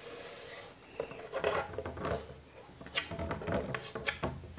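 Chalk scraping along a wooden ruler on a blackboard, then a series of light knocks and taps from the ruler and chalk against the board.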